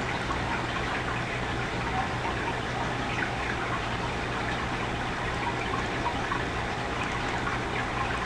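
Steady hiss with a constant low hum: the recording's background noise, played back sped up.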